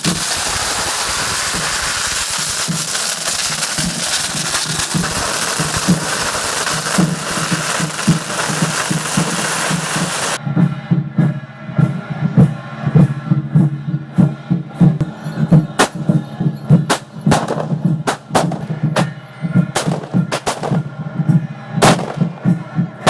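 Fireworks going off: a dense, continuous crackling hiss for about the first ten seconds, then cut short and followed by many sharp pops and bangs in quick, irregular succession. Background music plays throughout.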